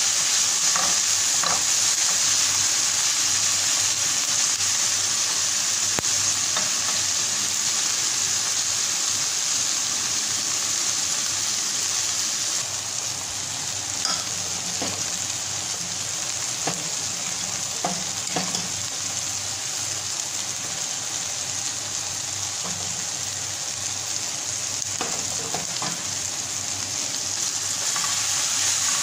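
Diced tomato, carrot and onion sizzling in oil in a frying pan while being stirred with a plastic spatula: a steady frying hiss. Partway through the sizzle drops a little and a few light clinks are heard as noodles are stirred in a steel pot. The sizzle rises again near the end.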